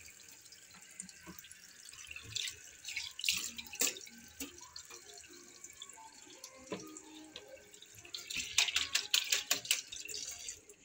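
Kitchen tap running into a stainless steel sink while hands rinse and splash under the stream, with a couple of light knocks against the sink. The splashing grows louder about eight and a half seconds in.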